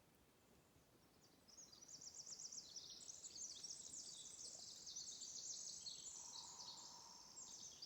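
Songbird singing a long, fast run of high twittering notes that starts about a second and a half in and carries on to the end.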